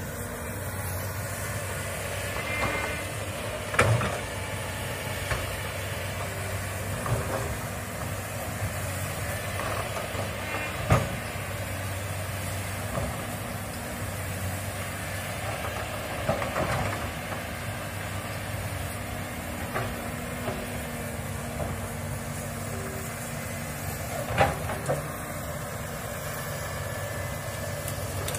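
Komatsu hydraulic excavator's diesel engine running steadily as the machine tracks and works its boom, with a few sharp knocks and cracks along the way.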